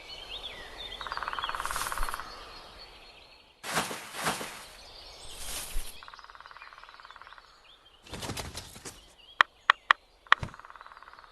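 Beaver recording: three spells of a fast, fine rasping, two stretches of rushing noise, and a quick run of sharp knocks near the end. Birds chirp faintly behind.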